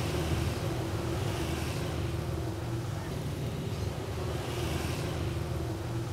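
Steady low engine hum of an idling vehicle, with soft swells of hiss every couple of seconds.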